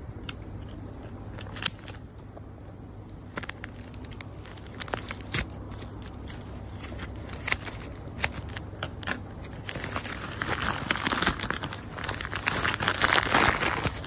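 Plastic packaging crinkling as it is handled: scattered crackles at first, then dense, louder crinkling from about ten seconds in.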